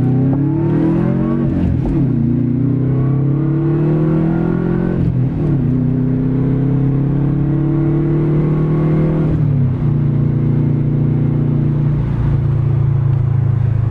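2013 Subaru WRX's turbocharged flat-four engine, heard from inside the cabin, accelerating hard: the pitch climbs, falls back at gear changes about two and five seconds in, then holds a steadier, slowly rising note before easing off near ten seconds and cruising on.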